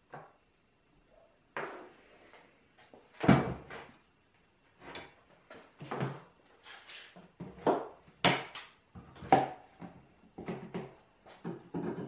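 Irregular clunks and knocks from a Central Machinery 18-inch metal bending brake being set on a wooden workbench and clamped down with bar clamps.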